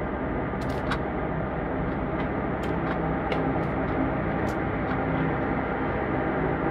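Wall-mounted oscillating electric fan running: a steady whir with a faint hum, and a few light ticks scattered through it.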